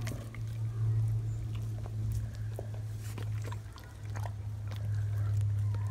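Large dog gnawing a raw meaty bone, its teeth clicking and scraping on the bone in scattered short crunches over a steady low hum.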